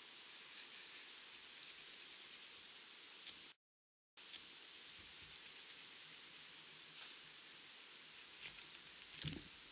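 Faint, steady background hiss with a few soft ticks, broken by about half a second of dead silence some three and a half seconds in.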